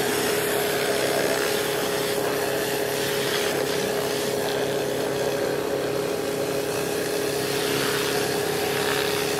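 Pressure washer running steadily, with high-pressure water spraying from a rotary surface cleaner being pushed over slate roof tiles: a constant machine hum over a steady hiss of spray.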